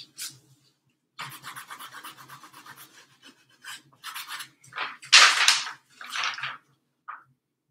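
Paintbrush scrubbing across stretched canvas: a quick run of short back-and-forth strokes for about two seconds, then several separate longer strokes, the loudest about five seconds in.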